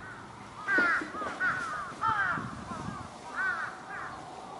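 Crow cawing: a run of harsh calls in several short groups through the first three and a half seconds.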